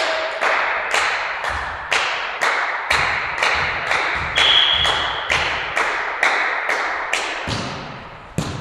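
Rhythmic hand clapping, about two claps a second, echoing through a sports hall and dying away near the end. A short whistle blast sounds midway, the referee's signal to serve, and a volleyball is struck once with a sharp smack near the end.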